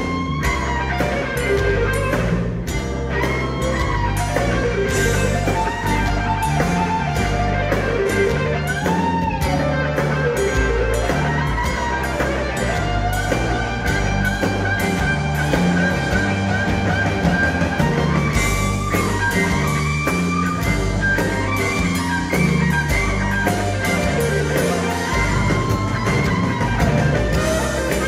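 Live blues-rock band: an electric guitar solo on a semi-hollow guitar, with many bent notes, over bass and drums.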